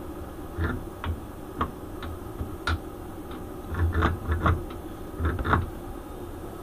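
Irregular light clicks and knocks with dull thumps, from metal parts being handled in a machine's base; the loudest come in clusters about four and five and a half seconds in.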